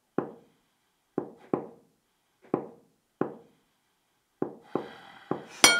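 A series of about nine sharp knocks, irregularly spaced and coming faster near the end. The last and loudest is a clink that rings on briefly.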